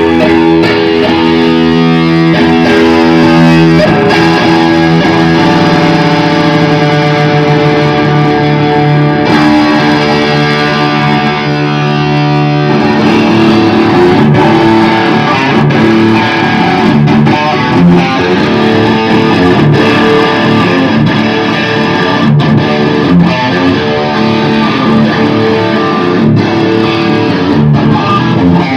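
Electric guitar played through an Orange Super Crush combo amplifier. It holds ringing chords for about the first twelve seconds, then moves to busier picked playing.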